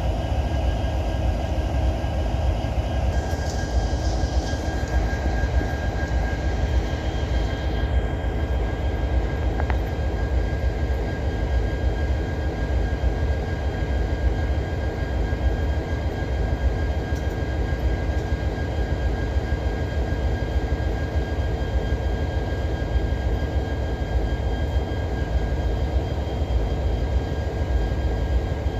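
Diesel-electric freight locomotive idling: a steady low rumble with a thin, constant high whine over it.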